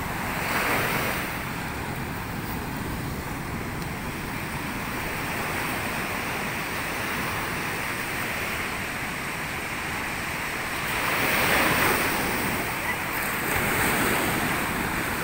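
Ocean surf breaking and washing up a sandy beach, with wind rumbling on the microphone. The waves swell louder about half a second in and again around eleven seconds in.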